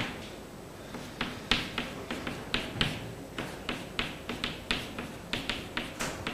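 Chalk writing on a chalkboard: a run of sharp taps and short strokes, about three or four a second, starting about a second in.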